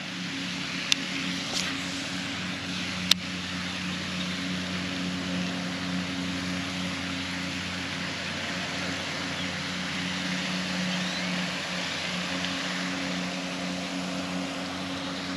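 A steady, unchanging mechanical drone from a distant engine under an even outdoor hiss, with two sharp clicks about one and three seconds in.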